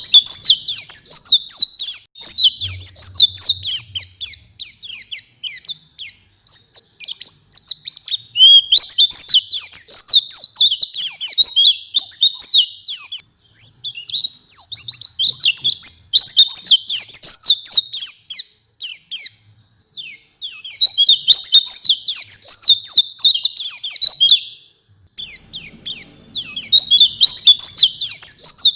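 White-eye (pleci) singing in full, busy song: fast, high twittering phrases run together in bouts of several seconds, broken by brief pauses.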